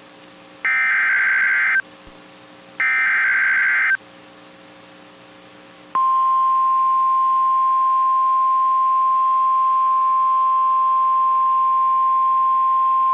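Emergency Alert System SAME header: the last two of its three digital data bursts, a harsh warbling about a second long each, a second apart. After a two-second pause comes the single steady 1050 Hz attention tone, held for about nine seconds. Together they mark the start of a new alert.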